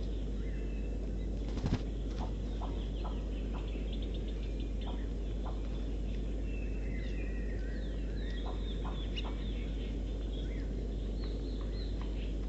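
Wild birds at a feeding spot calling and chirping, many short notes in quick succession, slowed to half speed, over a steady low background noise. A single sharp knock about a second and a half in.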